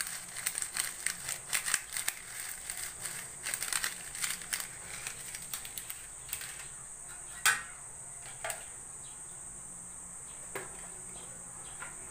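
Seasoning granules being shaken from a crinkling sachet into a pot: a dense run of small crackles over the first five seconds, then a few scattered clicks, one louder click about seven and a half seconds in. A steady high cricket chirr runs underneath.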